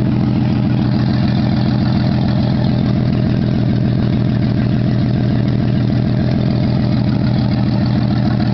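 Jeep Cherokee XJ straight-six engine idling steadily, with its exhaust open after a new tri-Y header and downpipe because the cat, muffler and tailpipe are not yet fitted.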